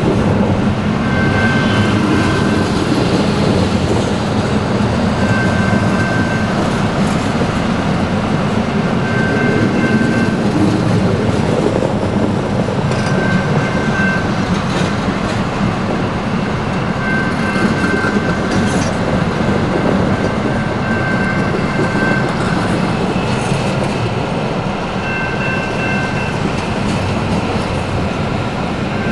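Double-stack intermodal freight train, container-laden well cars, rolling steadily past at a grade crossing: a loud continuous rumble of wheels on rail, with short high tones coming and going every few seconds.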